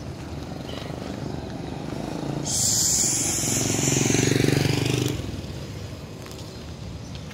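Loaded truck driving slowly past close by, its engine swelling to loudest about halfway through and then fading. A high hiss starts about two and a half seconds in and lasts about two seconds.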